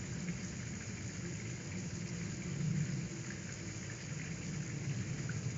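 Steady rain, an even hiss with a low rumble beneath it.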